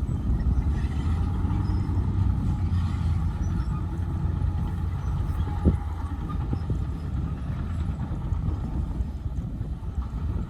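Diesel engine of heavy earthmoving machinery running steadily with a low rumble, with one sharp clank a little past the middle.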